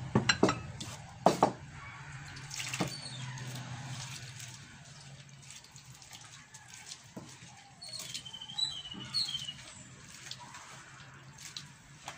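Water poured from a plastic jug onto grated coconut in a bowl, then splashing and squelching as a hand kneads and squeezes the wet coconut to draw out coconut milk. A few sharp knocks come in the first three seconds, and brief high chirps about eight seconds in.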